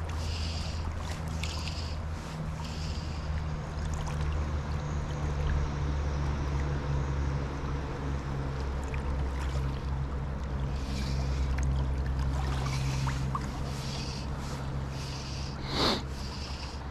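Steady low rush of a shallow trout river flowing around a wading angler, with faint scattered clicks. One brief, sharp, higher sound stands out near the end.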